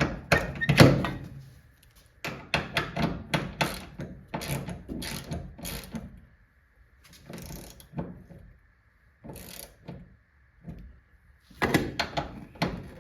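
Socket ratchet clicking in quick runs as the 10 mm bolts clamping the door mirror bracket around its post are cranked down, with a louder knock about a second in.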